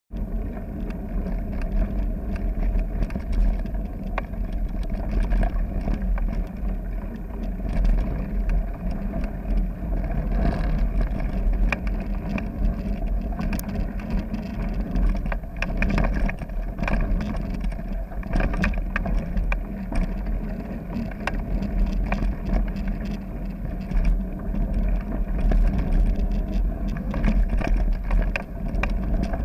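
Mountain bike riding over a gravel trail: tyres crunching on loose stones and the bike rattling in scattered clicks, over a steady low rumble of wind on the microphone.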